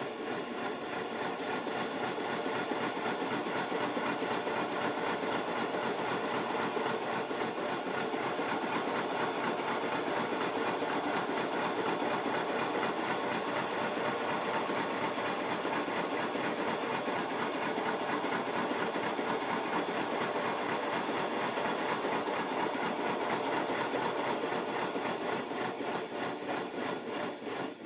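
5-inch gauge GWR 14XX model steam locomotive running steadily in reverse gear on compressed air, its wheels turning on a rolling road. Its rapid beat is a little uneven in reverse.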